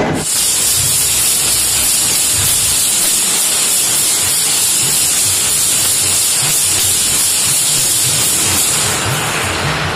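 A loud, steady high hiss that cuts in abruptly and fades out about nine seconds in.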